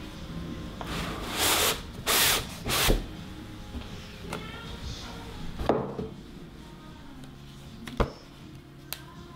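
Cardboard sleeve sliding off a long cardboard box: three scraping rubs of card on card in the first few seconds. Then a knock and, near the end, a sharp click as the box is handled and its lid lifted.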